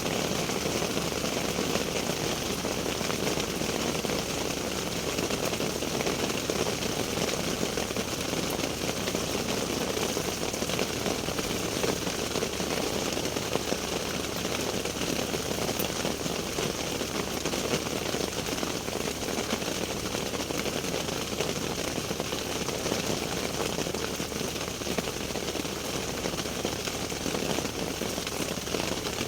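Steady rain falling: a dense, even patter of drops that holds unchanged throughout.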